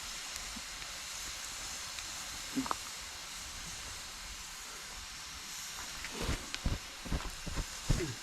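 Campfire burning with a steady hiss, one crackle a little over two and a half seconds in, and a quick run of pops and crackles over the last two seconds.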